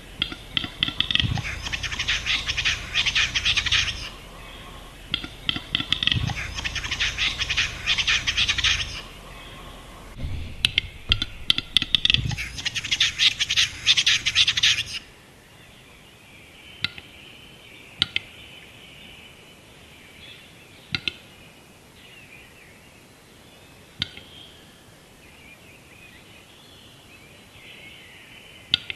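Male western capercaillie singing its lek song three times in a row: each song opens with a few dry clicks and runs into a scraping, wheezing whetting phrase lasting three to four seconds. In the second half there is only faint twittering of small birds and a few single sharp clicks.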